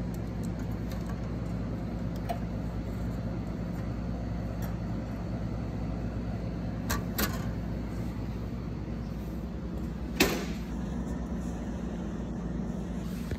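Steady low machine hum from a coffee vending machine, with a couple of light clicks about seven seconds in and a sharper knock about ten seconds in as the paper cup is handled.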